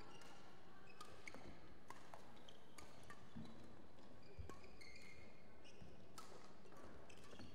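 Faint sports-hall background with scattered light clicks of a badminton shuttlecock being struck and a few short squeaks of court shoes during a doubles rally.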